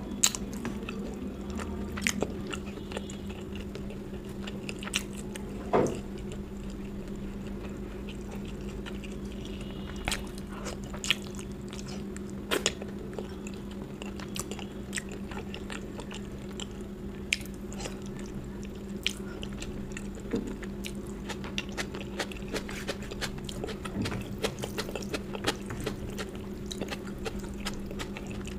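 A person eating curry and rice close to the microphone: chewing and biting with wet mouth sounds and scattered sharp clicks, over a steady low hum.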